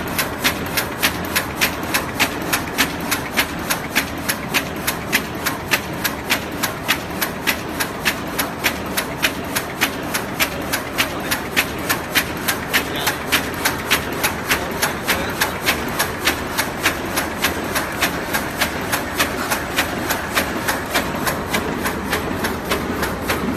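HBJ-D1200 double-line carton erecting machine running at speed, an even, rapid clacking of about three to four strokes a second over a steady mechanical running noise.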